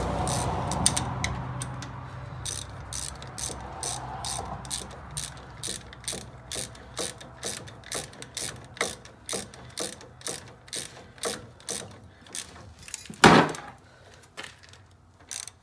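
Hand ratchet on a wobble extension clicking in quick, even back-strokes, about two a second, as it runs a brake caliper bolt in. A single sharp knock near the end is the loudest sound.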